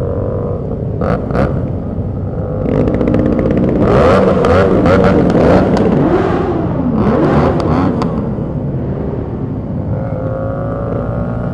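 Sport motorcycles riding in a group, their engines rising and falling in pitch as they rev through the middle of the stretch, over a steady low rumble of the moving bike. Two short clicks about a second in.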